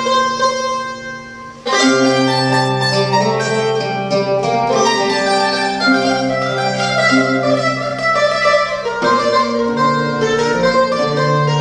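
Instrumental folk music on a mandolin and a larger round-backed lute-type instrument, plucked together in a slow tune with sustained low notes. The sound thins out briefly, then a loud fresh chord comes in under two seconds in.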